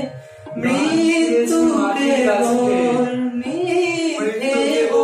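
Two male voices singing a Bengali song, drawing out long sung notes on the word "mrityu" (death), with a brief dip between phrases just after the start.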